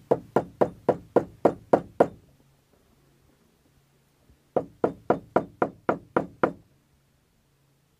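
Small hammer tapping a punch against a roller-chain link to drive out a stubborn link pin. Two runs of quick sharp strikes, about four a second, with a pause of about two seconds between them.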